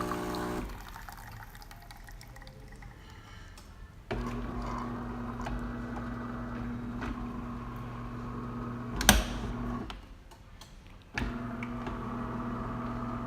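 DeLonghi Magnifica espresso machine finishing a shot. Its pump hum cuts off under a second in. A steady machine hum then starts about four seconds in and runs for about six seconds, with a single sharp click near the end of it, and after a short pause runs again for the last couple of seconds.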